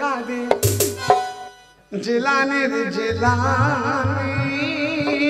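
Live folk band playing the instrumental lead-in to a devotional song: a wavering, vibrato melody over drums. The music drops away briefly about a second and a half in, then starts again.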